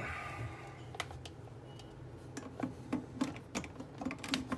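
Light, irregular clicks and taps, about eight over three seconds, from a step-down voltage converter and plug being handled.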